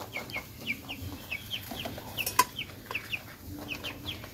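Domestic chickens clucking: a quick run of short, high, falling calls, about four a second, with one sharp click about halfway through.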